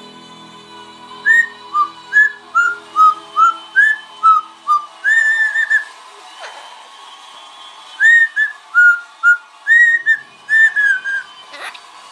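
Pet parrot whistling a run of short notes, each swooping up or down, then falling silent for about two seconds before whistling another run.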